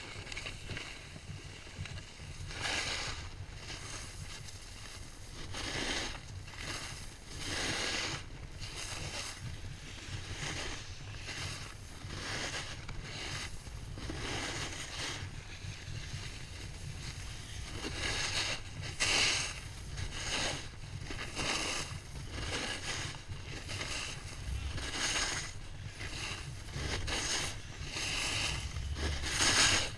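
Snowboard sliding down a groomed piste, the board's edge scraping and hissing on the snow in surges every second or two as it turns, over a steady rumble of wind buffeting the microphone.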